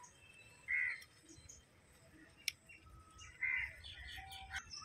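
Birds calling outdoors: two short, clear calls, one about a second in and one at about three and a half seconds, with fainter chirps between them. A single sharp click comes midway.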